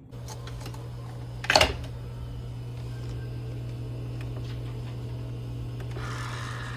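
Steady low machine hum, like a small motor running, with one loud knock about one and a half seconds in.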